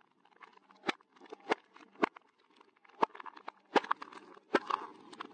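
Plastic cups crushed under a slowly rolling car tyre: about six sharp cracks and snaps spread over the few seconds, with lighter crackling of splitting plastic between them.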